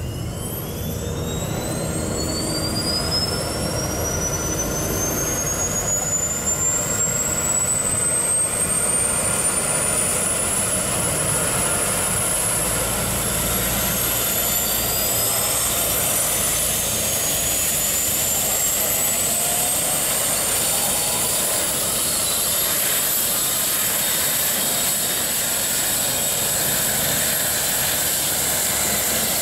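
Eurocopter EC135T2+ helicopter starting up: a turbine whine climbs steadily in pitch as the first of its two Turbomeca Arrius turboshaft engines spools up, and a second climbing whine joins about fourteen seconds in as the second engine starts, over the growing rush of the main rotor beginning to turn. The sound grows louder over the first few seconds, then holds steady.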